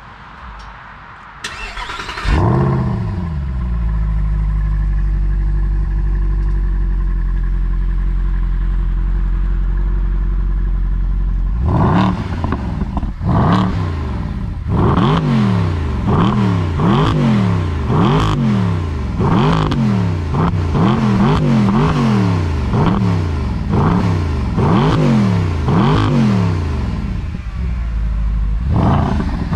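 Mercedes-Benz SLS AMG Roadster's 6.2-litre naturally aspirated V8 starting about two seconds in, flaring and settling into a steady idle. From about twelve seconds in it is revved again and again from standstill, about one quick blip a second, each rise and fall loud at the exhaust.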